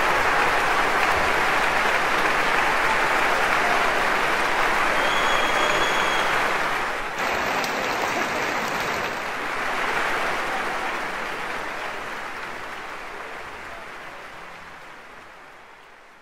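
A large concert-hall audience applauding, dense, steady clapping that dips briefly about seven seconds in and then fades away gradually toward the end.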